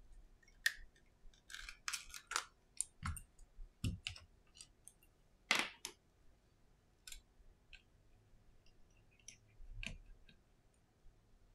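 Irregular small clicks and short scrapes as a plastic opening pick is worked around an iPhone 11's screen edge and the display is lifted open, with a few dull taps of the phone against a silicone mat.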